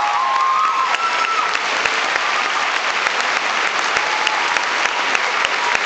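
Theatre audience applauding steadily, a dense patter of many hands clapping, with a few cheers and whoops in the first second or so.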